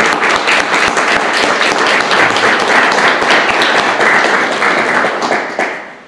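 Audience applauding; the clapping fades out near the end.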